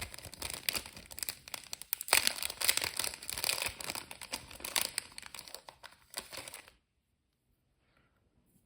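Plastic packet of long-fibre dubbing crinkling as it is handled and fibres are pulled out, an irregular crackle that stops suddenly about two seconds before the end.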